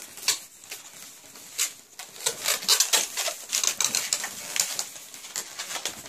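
Latex modeling balloons squeaking and rubbing as they are twisted and handled: a run of short, irregular squeaks and rubs that come thicker from about two seconds in.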